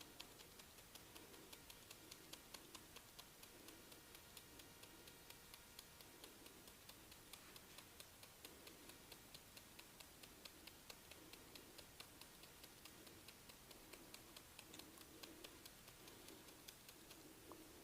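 Faint hand massage of a head and hair: a steady run of soft clicks, about three or four a second, over a rhythmic rubbing stroke.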